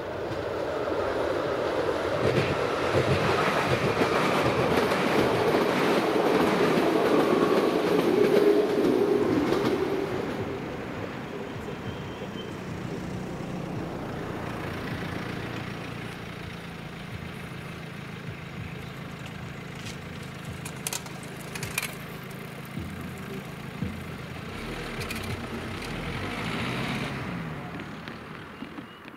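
A train runs over the level crossing, loudest in the first ten seconds, then fades to a lower steady rumble with a low hum. A few sharp clicks come about two-thirds of the way through.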